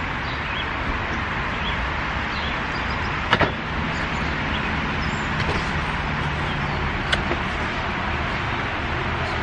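Shop vac running steadily, with a sharp knock about three seconds in and another about seven seconds in.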